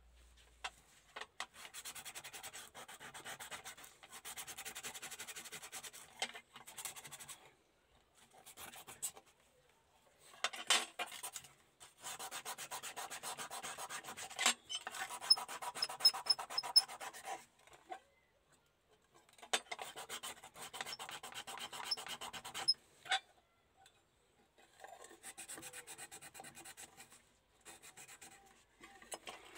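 Sandpaper rubbing over the small metal body shell of a die-cast model car in rapid scratchy strokes, sanding off the old worn paint and rust. It comes in bouts of a few seconds, with short pauses between them.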